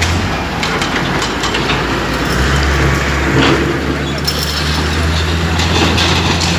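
Diesel engines of wheeled excavators and a wheel loader running steadily under load, with scattered knocks and crashes of walls and roofing being torn down.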